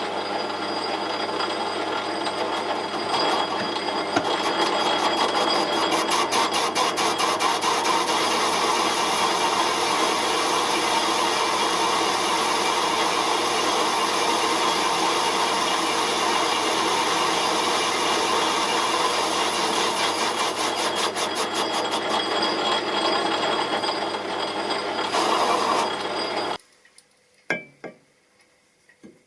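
A power tool or machine tool running under load while machining metal: a steady motor hum under a harsh rasping cutting noise. It starts abruptly, runs without a break and cuts off suddenly about 26 seconds in, followed by a few short clanks.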